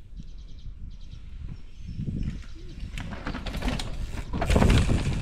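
Mountain bike coming down a dirt trail and passing close by, its tyres rolling over the loose dirt. The noise swells about three seconds in and is loudest just before the end.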